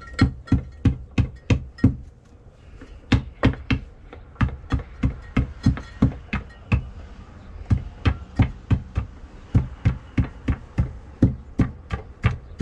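Hand tamper pounding coarse concrete sand in the bed of a paver walkway, leveling it: a run of sharp thuds about three a second, with short breaks about two and seven seconds in.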